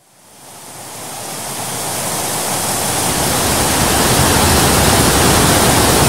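Steady rushing of water falling over the Kravica Waterfall's cascades and rapids, fading in from silence over the first couple of seconds and then holding steady.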